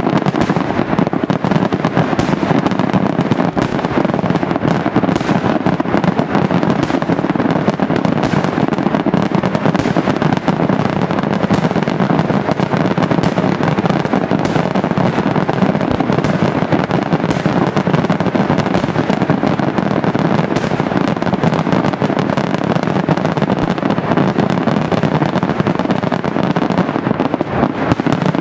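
Daytime fireworks display: shells and firecrackers going off in rapid, unbroken succession, a dense crackling run of bangs that never pauses.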